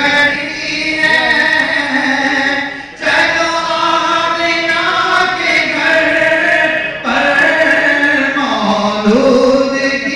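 A crowd of men's voices chanting a devotional hymn together in long, drawn-out phrases, with short breaks for breath about three and seven seconds in.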